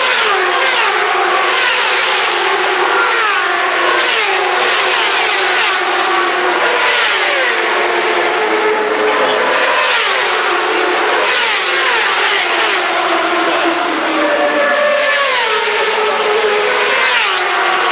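Several 1000cc superbike engines racing at high revs, their notes overlapping. The pitch slides down over and over and jumps back up every second or two.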